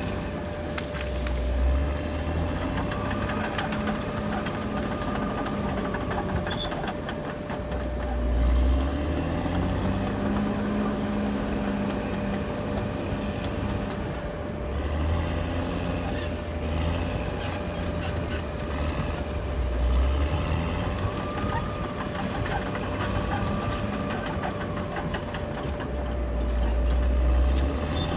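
Caterpillar D6R XL bulldozer's diesel engine running under working load, its note swelling and easing about every six seconds as the machine pushes and backs off, over a steady thin whine.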